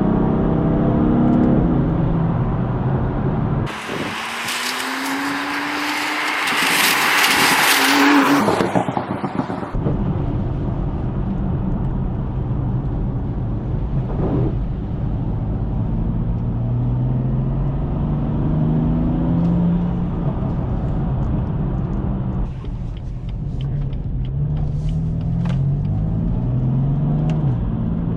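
BMW F82 M4's Stage 1 tuned twin-turbo straight-six engine pulling through the gears, its pitch climbing and stepping down at each shift, with a run of quick upshifts near the end. From about four to ten seconds in a loud hiss covers it and the engine's deep note drops out.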